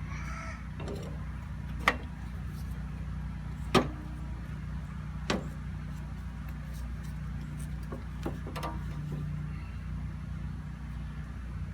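Three sharp knocks, roughly two seconds apart, and a couple of fainter taps a little later, from work on a mower deck as its drive belt is taken off and the spindles are handled. A steady low hum runs underneath.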